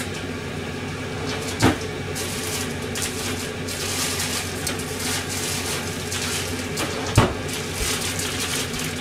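Steady hum of a kitchen appliance motor under a fine crackling from the pot of hot frying oil, with two sharp knocks, one about two seconds in and one about seven seconds in.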